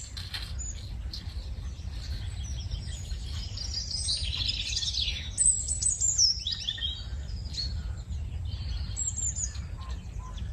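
Birds chirping and calling, many short high chirps one after another, over a low steady rumble.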